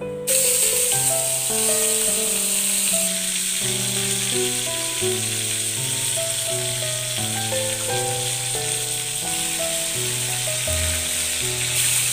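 Whole fish frying in hot oil in a pan: a loud, steady sizzle that starts suddenly about a quarter second in as the fish go into the oil. Background music plays underneath.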